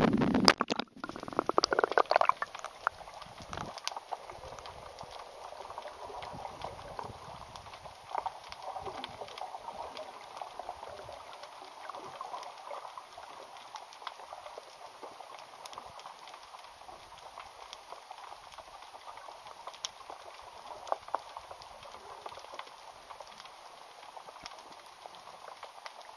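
Seawater splashing and sloshing at the camera as it goes under the surface, for about the first two seconds. Then the steady underwater crackle of the sea, a dense patter of tiny clicks with a few louder ones.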